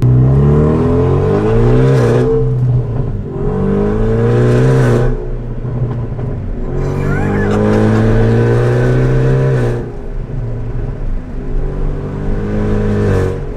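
Hyundai Veloster Turbo's turbocharged 1.6-litre four-cylinder accelerating hard through the gears with a catless downpipe, the exhaust loud. The engine note climbs and falls back at each upshift, three times, then runs lower and steadier near the end.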